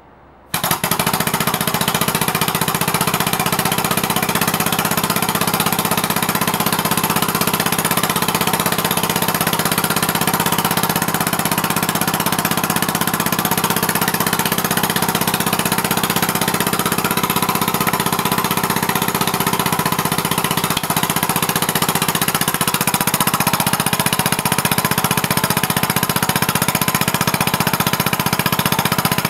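Homemade air-powered engine, a weed whacker's two-stroke engine converted to run on compressed air at about 60 psi. It starts abruptly about half a second in, then runs steadily with a fast, even pulsing of air exhaust.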